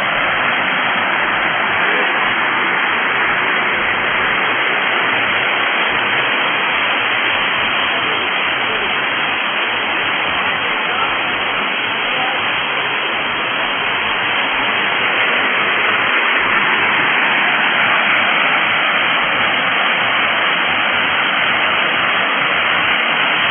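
Waterfall: a steady rush of falling water, loud and even throughout.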